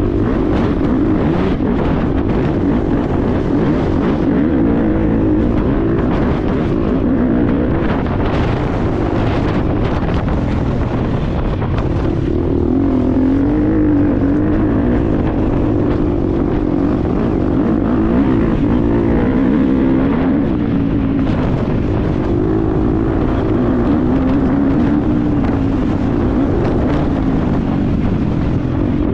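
2022 GasGas EX250F dirt bike's 250cc four-stroke single-cylinder engine running hard under way, its revs rising and falling continually with the throttle.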